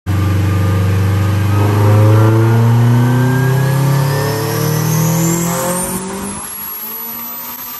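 Turbocharged Honda Del Sol engine making a full-throttle pull on a chassis dyno, its pitch climbing steadily for about six seconds with a rising whine above it. The throttle then closes and the engine sound drops away, leaving a high whine that carries on.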